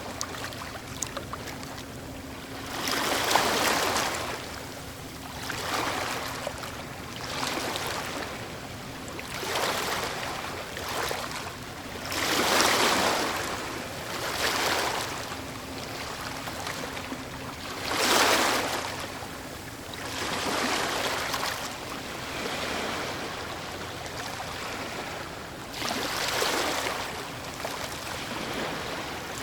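Ocean waves washing onto a shore, each wave a rising and falling rush of surf every two to three seconds, some breaking noticeably louder than the rest.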